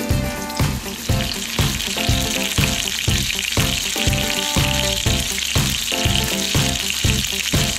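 Pork loin sizzling as it browns in hot olive oil in a frying pan, the sizzle growing louder about a second and a half in, under background music with a steady beat.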